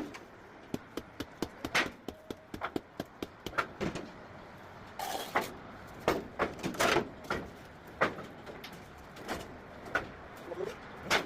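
Sharp, irregular knocks and clicks from tools and sandstone pieces being handled and set, with a couple of short scrapes about five and seven seconds in.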